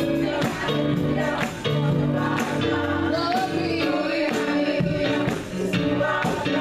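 Women's choir singing a gospel praise song over instrumental accompaniment, with percussion hits keeping a steady beat.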